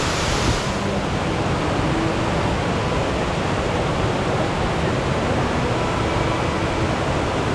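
Steady rush of flowing water from a mountain stream. The high part of the hiss softens a little under a second in.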